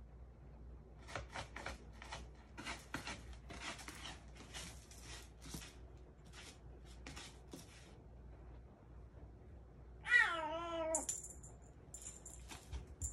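Bengal kitten scratching in cat litter in a plastic litter box, a quick series of short scratchy strokes over the first several seconds. About ten seconds in, a cat gives one wavering meow lasting about a second, dropping in pitch at its end.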